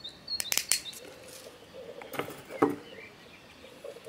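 Small side cutters snipping and handling thin coated craft wire: a few sharp clicks in the first second and two louder snips about two seconds in. Small birds chirp briefly in the background near the start.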